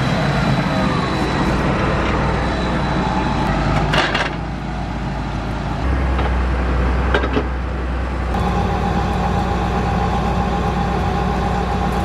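John Deere tractor's diesel engine idling steadily while its drawbar hitch is coupled. A couple of short metal clanks come from the hitch pin and safety chain, about four and seven seconds in.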